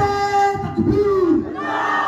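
Crowd shouting a chant together, voices held in long drawn-out calls.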